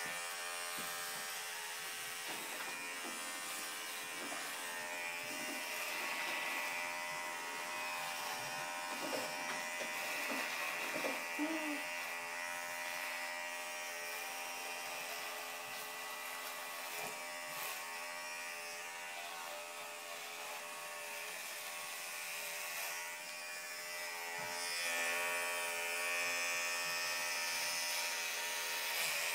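Electric hair clippers running with a steady buzz as they shave hair off a head.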